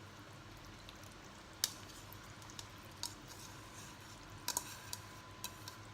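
Light clicks and knocks of a utensil against a stock pot, a few scattered strikes with the loudest about one and a half seconds in, over a faint steady hiss of simmering vegetable soup.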